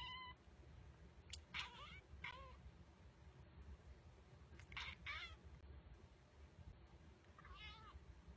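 A long-haired ginger cat meowing softly: about five short meows spaced a second or two apart, two of them close together near the middle.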